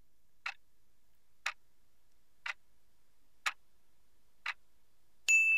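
Quiz countdown timer sound effect: five clock ticks, one a second, marking a five-second answer time. It ends in a bell ding that rings on and fades.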